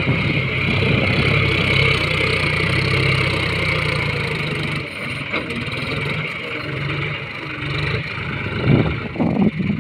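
John Deere tractor's diesel engine running steadily while it works its front loader, driving the bucket into a sand pile to scoop a load.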